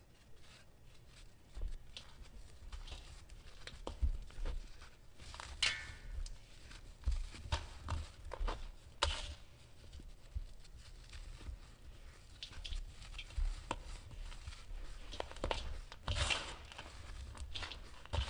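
Dry, gritty sand-and-cement clumps crushed and crumbled by hand, with loose sand rustling around the fingers: an irregular run of crunches and crackles, a few of them sharper and louder than the rest.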